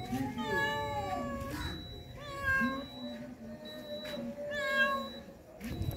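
Street cats meowing for food, several calls in turn: the first long, rising then falling in pitch, and shorter meows about two seconds in and near the end.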